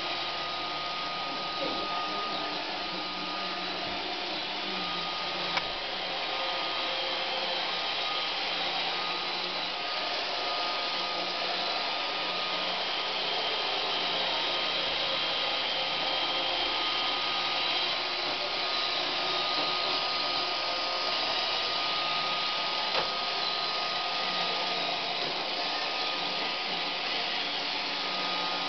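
Roomba robot vacuum running steadily: an even whirring noise with a thin, steady high whine, and a couple of small knocks as it bumps along.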